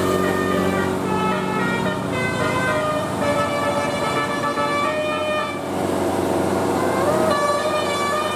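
Bus telolet horn, the multi-tone musical air horn of Indonesian buses, playing a tune of held notes that change pitch in steps, with a short upward slide about seven seconds in.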